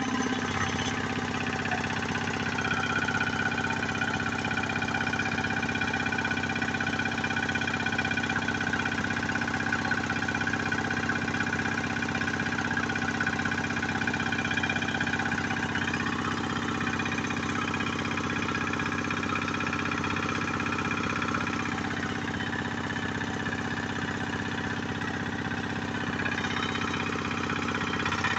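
Kubota two-wheel walking tractor's single-cylinder diesel engine running steadily.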